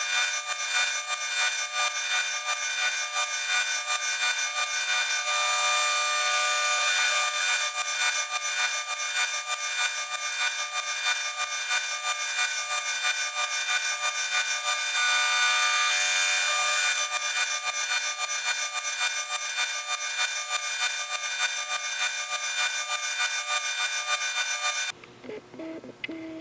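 Surface grinder grinding the cast-iron base of a cheap Stanley block plane: a steady, high, hissing scrape with ringing tones and a fast, even rhythm. It cuts off abruptly near the end.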